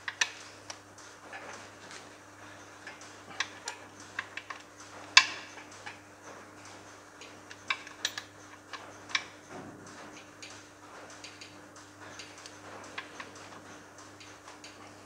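Socket ratchet clicking in short, scattered runs as bolts are tightened down on a tractor gearbox housing, with occasional sharper clinks of metal on metal, the loudest about five seconds in.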